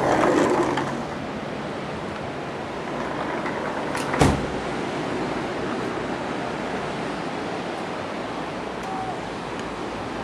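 Steady rush of ocean surf with wind on the microphone, broken by two sharp knocks about four seconds in.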